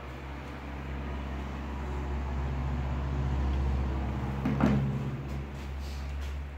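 A motor running with a steady low hum that swells for a few seconds and then eases back, with a single clunk about four and a half seconds in.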